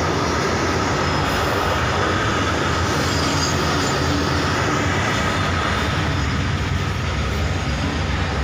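Freight train of open steel wagons rolling past close by: a loud, steady run of wheel and rail noise with no break.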